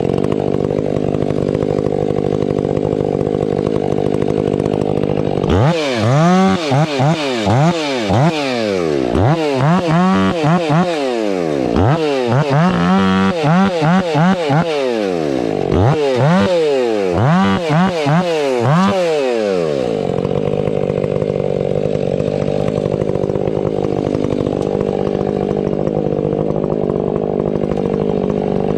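Stihl 500i fuel-injected two-stroke chainsaw running. For about fifteen seconds in the middle its engine pitch rises and falls over and over; before and after, it runs at a steady speed.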